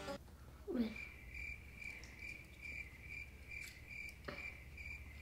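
Cricket chirping sound effect, a steady high chirp pulsing about three times a second that starts abruptly about a second in. It is the comic 'crickets' gag for a stumped silence. A short falling sound comes just before the chirping starts.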